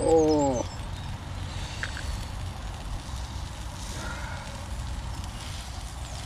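Portable gas canister stove burning steadily under a Ridge Monkey toaster pan, with the food in the hot pan sizzling faintly.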